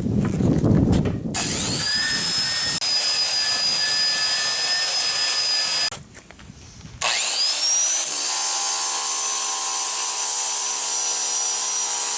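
A power tool with a wire brush scrubbing rusty hot-rolled steel angle. The brush is harsh and noisy at first. About a second in, the motor spins up with a rising whine and runs steadily. It stops near the middle, then spins up again and runs on.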